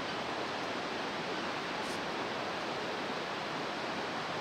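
Steady rush of the Bhote Koshi river's rapids, heard from high above the gorge.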